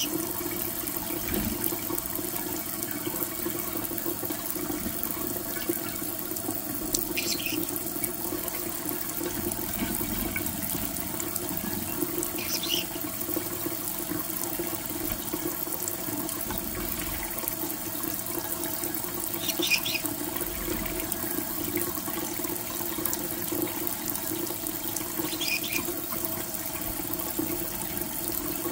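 A thin stream of kitchen tap water runs steadily into a shallow ceramic dish in a steel sink while a green-cheeked conure bathes in it. Four short high-pitched sounds stand out, about six seconds apart.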